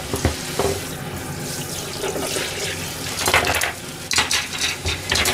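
Water running at a kitchen sink while a cutting board is rinsed and handled, with a few clattering knocks of the board against the sink, the loudest a little past halfway.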